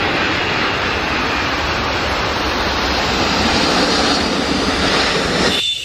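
Jet engines of a four-engined Boeing 747 airliner on landing, a steady loud rush of engine and air noise that cuts off abruptly near the end.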